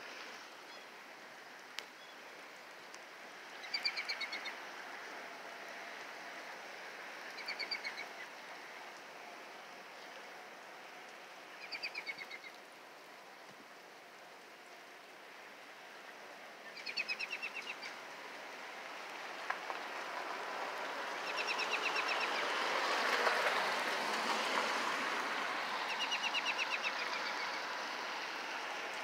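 Steady rain falling on wet pavement and puddles, with a bird singing a short, fast trill about every four seconds, six times in all. The hiss swells louder for several seconds in the second half.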